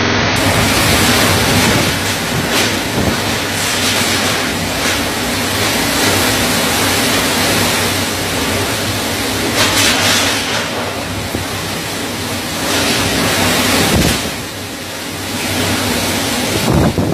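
Cyclone Fani's storm-force wind and driving rain, a loud, continuous rush that surges and eases in gusts, with the wind buffeting the microphone. It eases briefly about two-thirds of the way through, then builds again.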